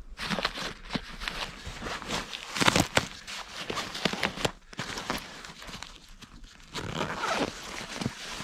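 Rustling and scraping of a backpack's synthetic fabric, mesh pouch and straps as gear is handled and unpacked by hand, with a few sharp clicks and knocks, the loudest about three seconds in.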